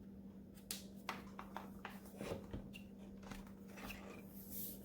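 Faint handling noise: a quick run of small clicks and taps about a second in, then a few softer ones, over a steady low hum.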